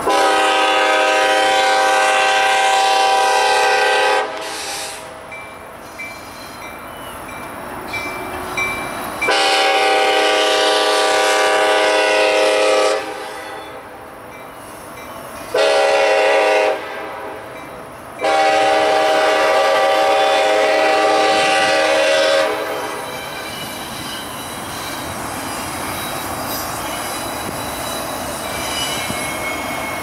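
Kansas City Southern diesel locomotive's air horn sounding the standard grade-crossing signal: long, long, short, long. The passing train's wheel and running noise carries on between the blasts and after them.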